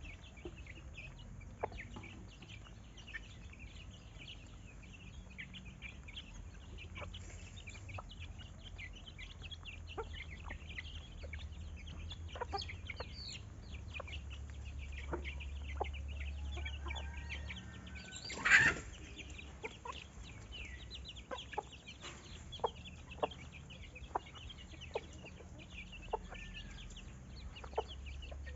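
Farmyard chickens clucking, with many small high chirps throughout and one short, loud call about two-thirds of the way through, over a low steady rumble.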